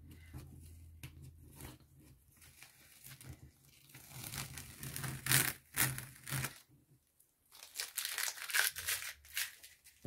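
Green masking tape being peeled off watercolour paper, a rasping rip in several pulls: one run about four seconds in and another near the end, with a brief pause between.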